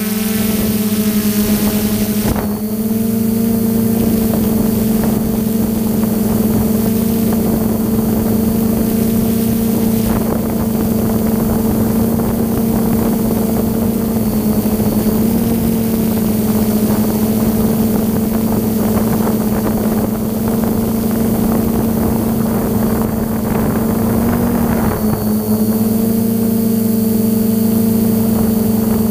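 DJI F550 hexacopter's six motors and propellers humming at a steady pitch in flight, heard through the onboard camera, with air rushing over the microphone. The pitch wavers briefly about halfway through and again a few seconds before the end.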